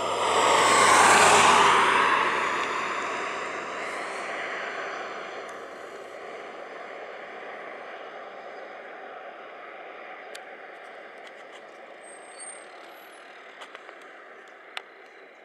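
A road vehicle passing close by, loudest about a second in and then fading away over several seconds, leaving a steady low engine sound with a few faint clicks near the end.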